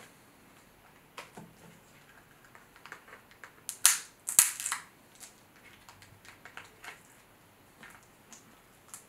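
Cooked king crab leg shell cracking as it is broken apart, with two loud, sharp cracks about four seconds in amid scattered small clicks and crackles of shell.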